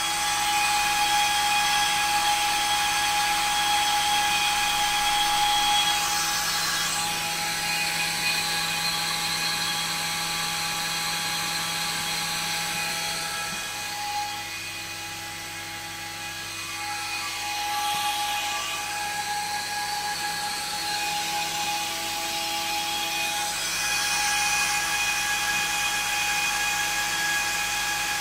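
Small axial cooling fan on a power amplifier's heatsink, running steadily with a whine made of several steady tones over a noisy rush. It gets quieter for a few seconds about halfway through.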